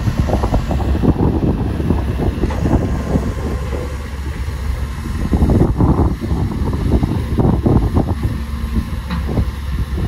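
Shantui DH17C2 bulldozer's diesel engine running, a steady low rumble overlaid with dense irregular rattling, with wind buffeting the microphone.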